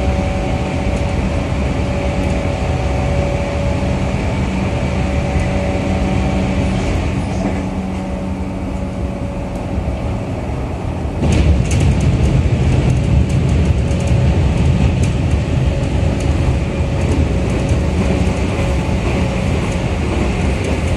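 Running noise heard inside a 211 series electric train car: a steady rumble of wheels on rail with a few faint hum tones. It gets suddenly louder about eleven seconds in, with scattered light clicks after that.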